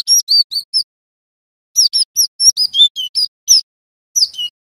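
Cinereous tit (glatik batu) calling in quick runs of short, high, down-slurred chirps: a few notes at the start, a burst of about nine in the middle, and three more near the end.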